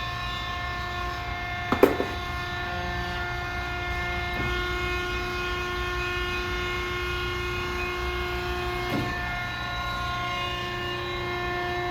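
W.F. Wells & Sons horizontal band saw running with a steady hum of several held tones over a low rumble, with a sharp knock about two seconds in and a few fainter clicks later.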